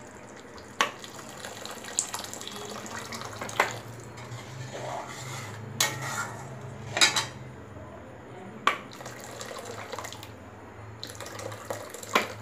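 Hot water poured from a flask into an aluminium kadai of masala gravy, with a steel spatula stirring it in and clinking sharply against the pan several times.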